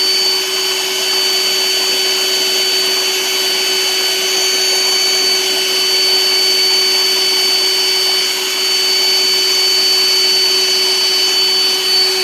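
Pump motor running steadily with a constant hum while a hose sends a strong jet of water splashing onto the pond surface.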